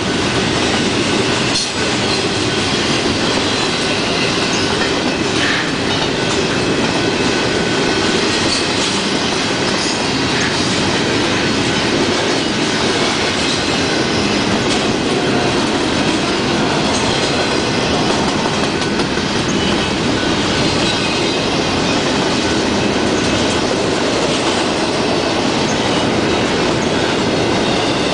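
Double-stack intermodal freight train's well cars rolling past: a steady, loud rumble and rattle of steel wheels on rail, with occasional sharp clicks and a faint high wheel squeal at times.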